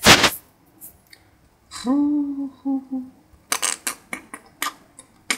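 A man humming a few short notes, after a brief rush of noise at the start, followed by a quick run of sharp clicks.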